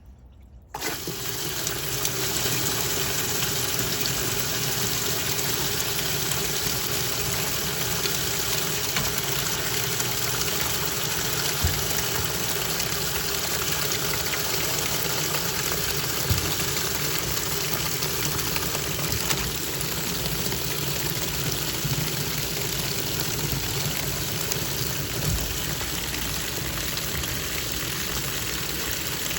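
Twin-tub washing machine running: a steady rush of water with a low motor hum underneath, starting suddenly about a second in.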